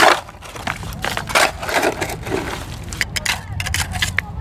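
Long-handled shovel digging into stony beach gravel, crunching and scraping in irregular strokes, with the loudest crunch at the start.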